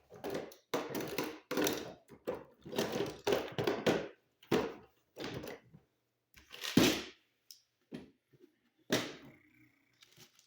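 A run of irregular handling knocks and clicks: hand tools and stiff copper wires being worked at an electrical box, with about a dozen short bursts and one louder knock a little past the middle.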